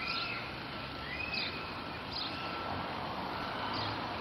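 Songbirds chirping, short high calls about once a second with a few brief whistled notes, over a steady outdoor background noise.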